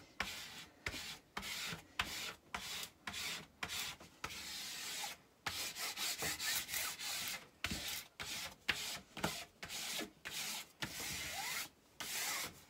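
Hand rubbing a diamond-painting canvas flat on a table: repeated swishing strokes across its glossy cover sheet, about two a second, with a couple of longer sweeps in the middle.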